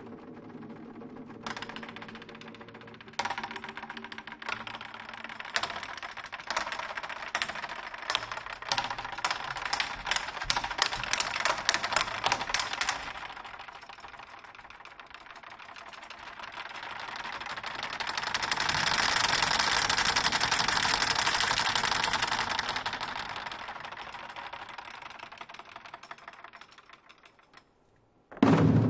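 A Chinese drum ensemble playing red barrel drums with sticks: sharp stick clicks that speed up into a dense, rapid clatter. This is followed by a soft hissing swell that rises and fades away. Near the end, after a brief hush, there is a single loud drum stroke.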